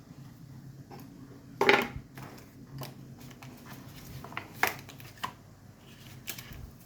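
Handling noises from unboxing a phone: scattered rustles and clicks of packaging and the handset being moved, the loudest a short rustle about a second and a half in.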